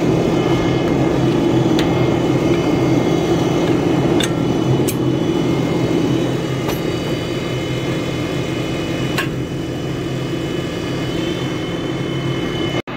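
New Holland tractor's diesel engine idling steadily, with a few light clicks over it.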